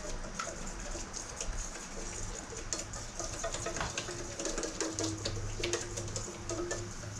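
A whisk clicking and scraping quickly and irregularly against a stainless steel bowl as egg yolks are whisked over a double boiler, tempering them for hollandaise.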